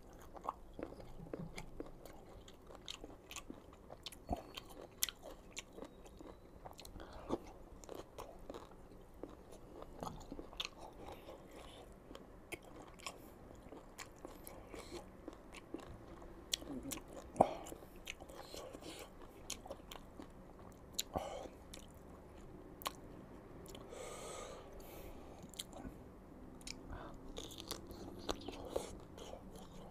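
Close-miked biting and chewing of crisp, unripe green mango, with many sharp crunches scattered throughout, the loudest a little past halfway.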